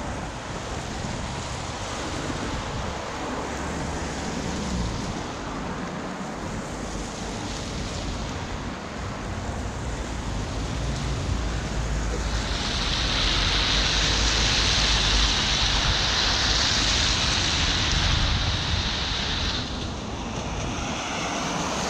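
Steady rushing noise of wind on the microphone, with low rumble underneath and a louder hiss for several seconds past the middle.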